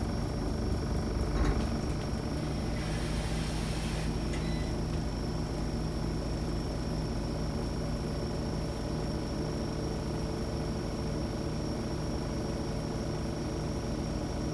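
Scania OmniCity city bus heard from inside the passenger cabin while driving: a steady low engine and road rumble, with a single knock about a second and a half in and a short hiss a few seconds in.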